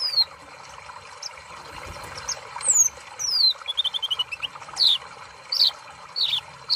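Sunbird (kolibri ninja) song: high, thin notes that slide steeply downward, a short rapid trill of chirps about four seconds in, and sharp high chips near the end, over a steady background hiss.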